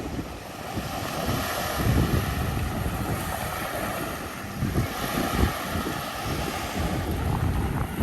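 Wind buffeting the microphone in irregular low gusts over a steady rushing wash of waves.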